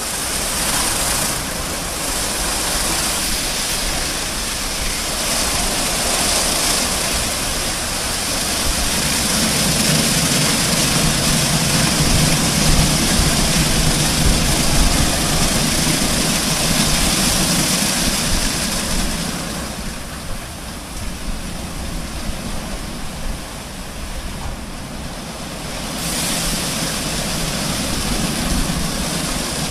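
Automatic rollover car wash gantry running: a steady rush of water jets over the hum of the brush and drive motors. The low motor hum builds about a third of the way in. The high spray hiss drops away for several seconds about two-thirds through, then comes back.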